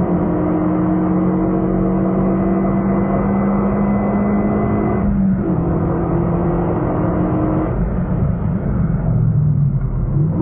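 Renault Mégane RS265's turbocharged four-cylinder engine at full throttle, heard from inside the cabin: the engine note climbs steadily, drops for an upshift about five seconds in and climbs again. About eight seconds in the throttle is lifted and the note falls away.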